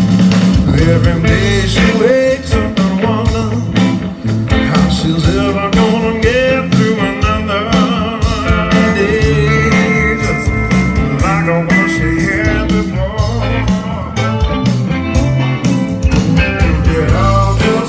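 Live blues rock band playing: electric guitars, bass and drums keep a steady groove while a lead line bends in pitch and holds a sustained high note partway through.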